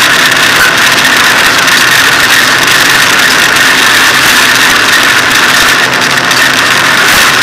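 Hyundai rally car driven on a stage, heard from inside the stripped cabin: the engine running hard under load, mixed with dense road and wind noise. The sound is very loud and steady.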